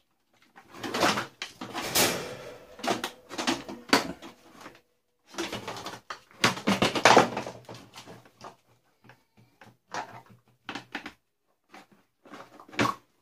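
Plastic parts of a Dyson DC41 vacuum cleaner being handled and pulled apart: irregular clusters of knocks, clicks and rattles, thinning to scattered single clicks in the second half.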